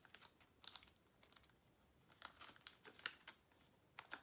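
Faint crinkling and rustling of a clear plastic binder sleeve as a trading card is slid into its pocket, with a sharp crackle of the plastic about two-thirds of a second in and a louder one near the end.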